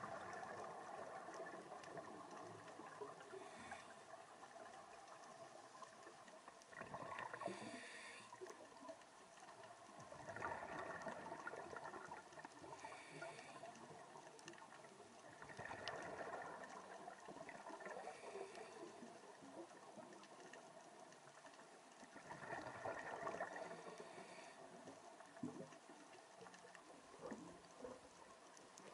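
Scuba diver's breathing heard underwater: a faint recurring cycle every five seconds or so of regulator hiss on the inhale and gurgling exhaled bubbles.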